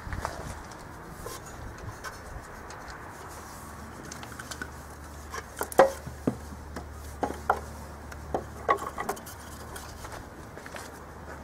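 Scattered clicks, taps and knocks of hands working a starter rope around a small engine's flywheel to rope-start it, with the engine not yet running. The loudest knock is about six seconds in. A faint low hum runs underneath.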